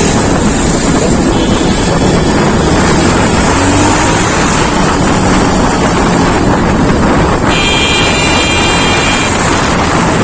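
Wind buffeting the microphone over a running motorcycle engine and surrounding traffic while riding. A steady horn-like tone sounds for about two seconds near the end.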